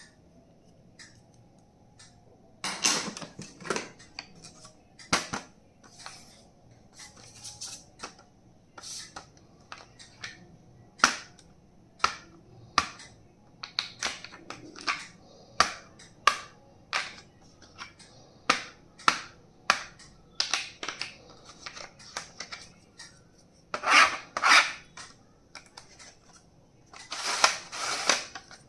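Plastic stationery and packaging being handled during unboxing: a run of sharp clicks and taps, with bursts of crinkly rustling about three seconds in and again near the end.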